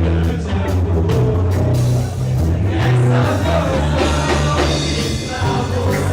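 Rock band playing live: drums keeping a steady beat over heavy bass, with a singing voice.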